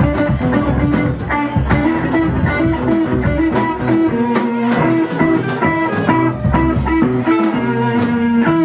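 Rock band playing, with electric guitar over drums keeping a steady beat.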